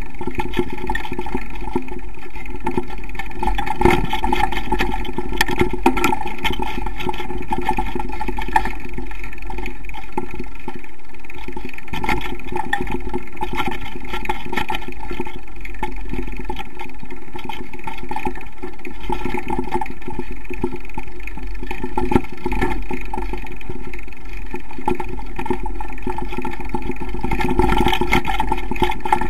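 Motorcycle engine running steadily while climbing a rough dirt forest track, with scattered knocks and rattles from the bumps.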